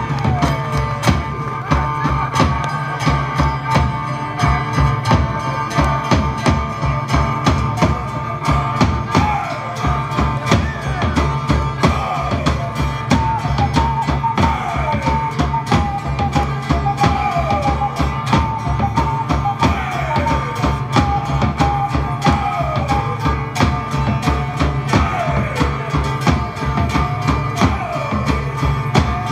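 Live band music: a drum kit keeps a steady beat under bass and a held melody line.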